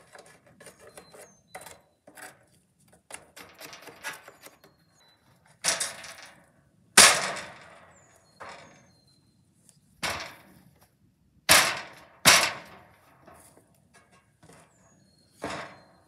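Wooden beehive boxes and frames being handled: light scraping and rubbing of wood on wood, then about six sharp wooden knocks and thuds as boxes are set down and bumped together, the loudest about seven seconds in.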